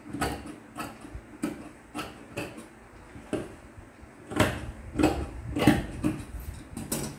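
Large steel tailor's shears cutting through black fabric: a run of short, crisp snips about once every half second, a few heavier ones with a dull knock near the middle and end.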